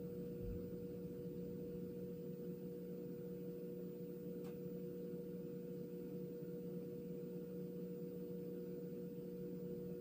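MidNite Solar "The One" all-in-one inverter humming steadily under a load of several thousand watts, a low hum made of a few fixed tones. There is a faint tick about four and a half seconds in.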